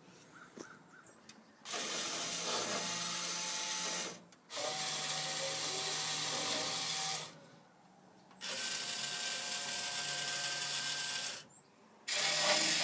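Automatic Products C-Series snack machine's vend motors running in cycles: a steady motor whir lasting about three seconds, three times with short pauses between, and a fourth starting near the end.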